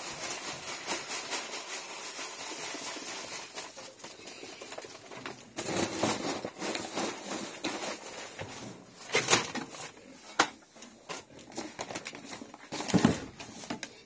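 A paper feed sack rustling and crinkling as it is handled and emptied, with pig feed pellets pattering. A few louder rustles and a sharp click come later on.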